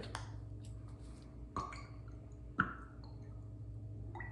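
Worcestershire sauce shaken from a small bottle into raw meatloaf mix in a metal bowl: a few faint drips and small clicks, the sharpest about two and a half seconds in, over a low steady hum.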